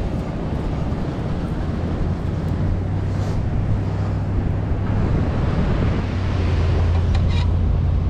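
A vehicle engine running steadily with a low, even hum that grows louder a few seconds in, mixed with wind rushing over the microphone.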